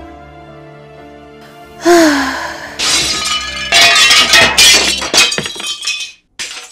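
Soft background music, then about two seconds in a loud transition sound effect: a hit with a falling tone, followed by a dense crashing, shattering run of many sharp hits that cuts off suddenly near the end.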